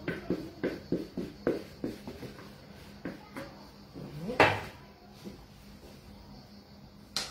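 Light knocks of a plastic mixing bowl being tapped and scraped out over flour on a wooden pastry board, about three a second and then thinning out, with one louder knock about four seconds in.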